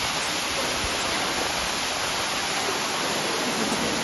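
Water rushing steadily over a small rocky waterfall into a pool, an even hiss with no breaks.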